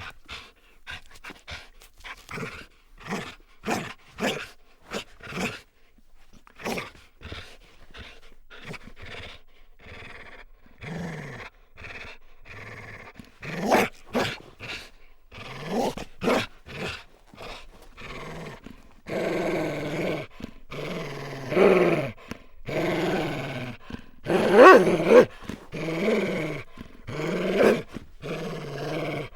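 A dog's vocal sounds: quick short breaths, about two a second, in the first part, then louder, longer growls about once a second through the second half.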